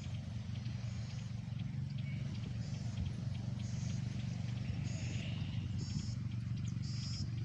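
A steady low engine hum, with short high chirps every second or so and a few faint ticks.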